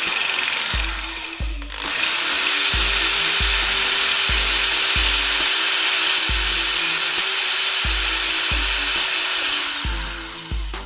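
Black & Decker KR554RE 550-watt hammer drill running at speed, with a steady motor whine. It stops briefly about one and a half seconds in, starts again, runs evenly for about eight seconds and winds down near the end.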